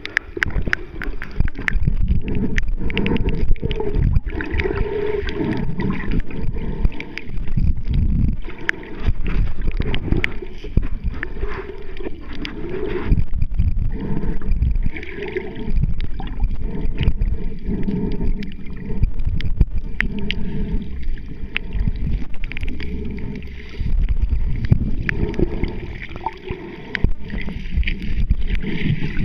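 Muffled underwater sound picked up by a submerged camera: churning, gurgling water movement with many scattered sharp clicks.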